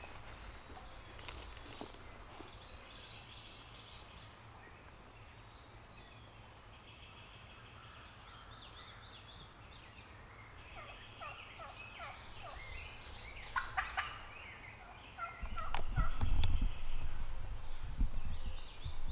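Wild turkey gobbling, a rapid rattling call heard in the second half, over songbirds singing in the woods. Near the end a loud low rumbling noise rises over everything.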